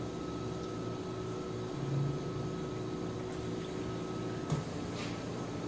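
Steady electrical hum of a running appliance, with a soft low thump about two seconds in and a short sharp click a little after the middle.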